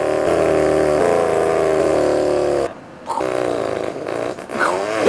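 Imitated car engine for a toy jeep driving off: a steady engine drone that breaks off briefly about three seconds in, starts again, and falls in pitch near the end.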